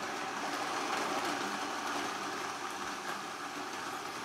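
Countertop blender running steadily on its frozen-dessert setting, blending yogurt, mango chunks and ice into a smoothie.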